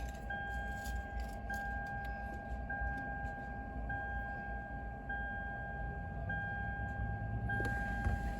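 A car's electronic warning chime repeating about once every 1.2 seconds, a steady two-pitch tone with short breaks, over the low hum of the Camry's V6 still idling, and a few light clicks.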